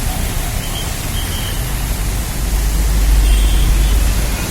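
Steady rush of heavy rain and floodwater. A low rumble swells about two and a half seconds in and holds to near the end.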